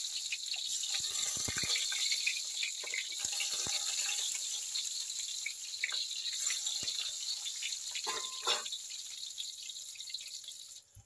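Eggplant pieces frying in hot oil in a wok: a steady sizzle with scattered crackles and pops, cutting off abruptly near the end.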